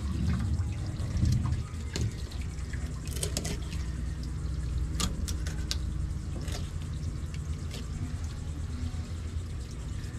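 Water running and dripping from a burst garden hose, a steady low rush, with scattered sharp clicks and taps as a fillet knife works through a hogfish on the cleaning table.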